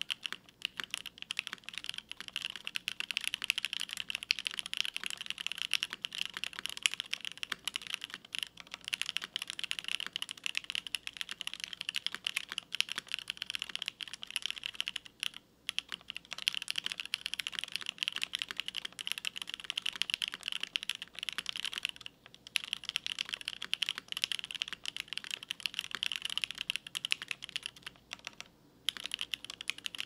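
Custom mechanical keyboard, a DriftMechanics Austin with lubed Silk Olivia switches on an FR4 plate, GMK Demon Sword keycaps and screw-in stabilizers, typed on quickly and steadily: a dense run of key clacks with a few short breaks near the middle and toward the end.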